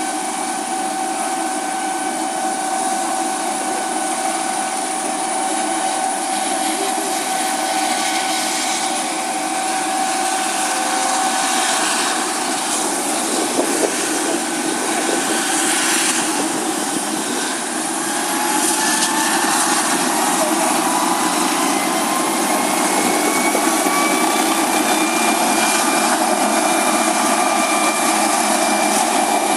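Air ambulance helicopter running on the ground with its rotors turning: a steady turbine whine over the rotor noise. About two-thirds of the way through, the whine rises in pitch and the sound grows louder as the engines pick up power.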